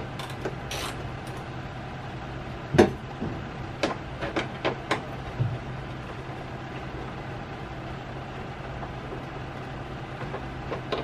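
Scattered clicks and taps of a screwdriver working the tail-light mounting bolts, with one sharper knock about three seconds in and a cluster of clicks a second later, over a steady low hum.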